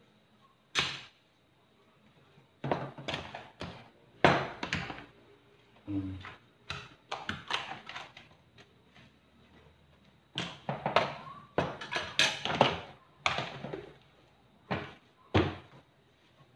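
Metal spoons knocking and scraping against plastic containers while mashed sweet potato is mixed with sugar and margarine: irregular clattering knocks in short clusters with pauses between them.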